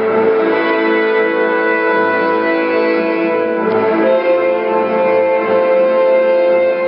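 Background music: sustained instrumental chords, changing about four seconds in.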